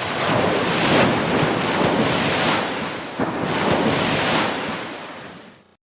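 Ocean surf: a continuous rush of breaking waves that swells and eases, fading away over the last second and cutting off suddenly near the end.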